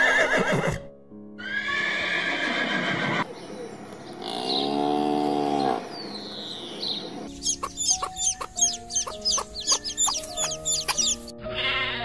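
Farm animal calls over background music: a horse neighing in the first few seconds, then a calf's long moo that rises and falls around the middle, then a run of quick high chirps near the end.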